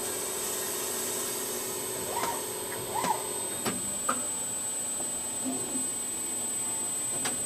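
Steady forge-shop machinery noise, a hiss with a constant high whine and a lower hum that stops about halfway through. A few short knocks sound over it, one just before the end.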